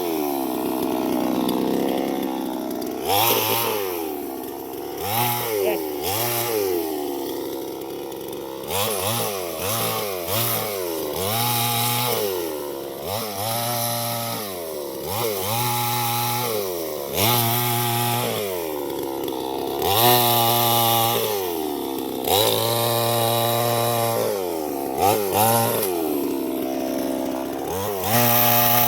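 Chainsaw engine revving up and falling back over and over, about once a second, as the throttle is worked during wood carving.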